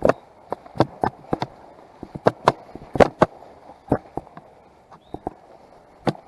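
Footsteps crunching through dry brush and leaves, with sharp snaps and cracks at irregular intervals, two or three a second.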